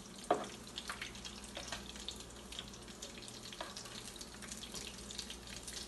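Pasteles frying in shallow oil in a skillet, with a steady sizzle full of fine crackles. A few sharp clinks of metal tongs against the pan, the loudest just after the start.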